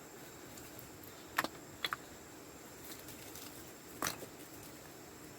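A few sharp clicks and crackles of dry scraps and off-cuts being handled, one pair close together and the loudest near the end, over a faint steady hiss.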